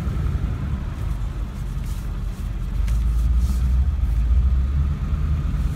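2002 Ford F-350's 7.3-litre Power Stroke turbo-diesel V8 running, heard from inside the cab as a deep rumble with a faint steady whine above it. The rumble swells for a couple of seconds about three seconds in.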